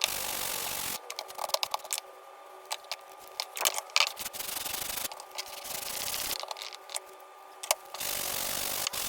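Sandpaper rubbing on a wooden lid handle in a few long strokes of about a second each, with small clicks and knocks between them as the piece is handled. The handle is being sanded down to remove dents.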